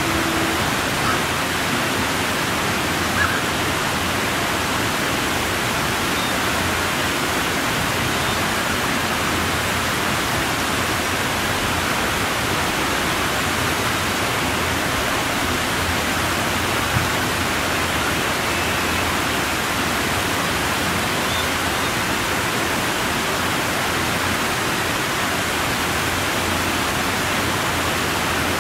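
Steady rushing noise that holds at one level throughout, with a faint tick about three seconds in and another about seventeen seconds in.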